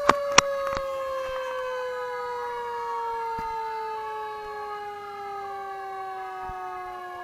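Fire truck's mechanical siren winding down, its pitch falling slowly and steadily, with a fainter second siren wailing up and down behind it. Two sharp knocks just at the start.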